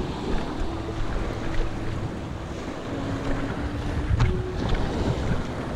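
Small waves washing over a rocky shore, with wind buffeting the microphone.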